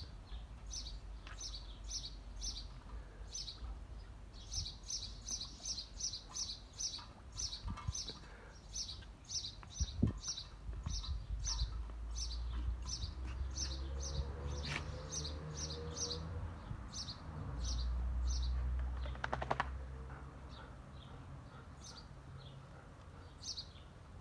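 A small bird chirping over and over, short high chirps about two or three a second, thinning out to a few stray ones near the end. A low rumble runs underneath through the middle.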